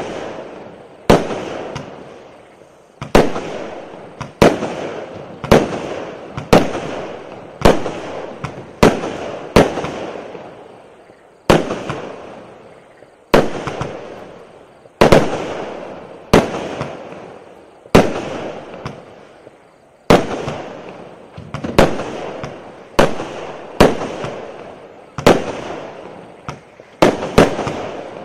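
A 49-shot, 0.8-inch fireworks cake firing its shells in sequence: a sharp bang about every second, sometimes two in quick succession, each ringing off before the next.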